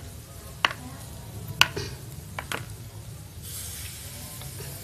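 A few light clicks and taps of a serving bowl and wooden satay skewers against a ceramic plate, over a low steady background noise. A steady high hiss comes in about three and a half seconds in.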